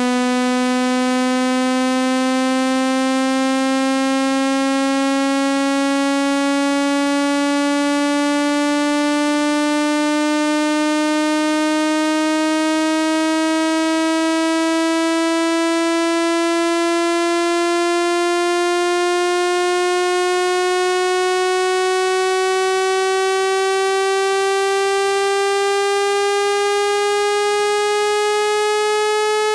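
Electronic speaker-cleaning tone for pushing water out of a phone speaker: one steady, buzzy synthesized tone that rises slowly and smoothly in pitch at constant loudness.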